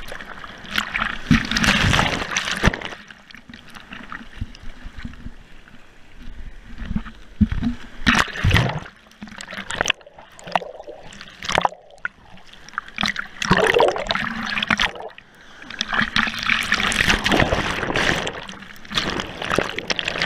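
Surf water churning and splashing around a camera that dips in and out of the waves, with bursts of bubbling and gurgling heard through its waterproof housing; the sound swells and drops irregularly.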